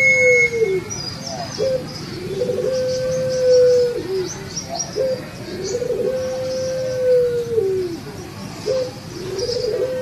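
Puter pelung, a domestic ring-necked (Barbary) dove, cooing repeatedly. Each phrase is a short note followed by a long level coo that drops away at the end, three times over.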